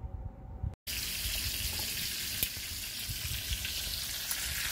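Chuck roast searing in olive oil and butter in a non-stick frying pan: a steady sizzle that cuts in suddenly about a second in, after a quiet start.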